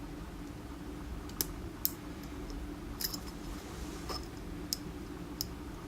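Faint, sharp metallic clicks of a lock pick working the pins inside a DOM iX10 KG pin-tumbler cylinder, about six spread over a few seconds, over a steady low hum.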